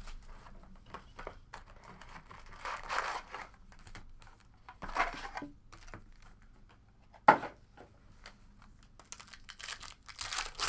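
Plastic wrapping on a box of trading cards crinkling and tearing as it is opened, in several short rustling bursts, with one sharp snap about seven seconds in.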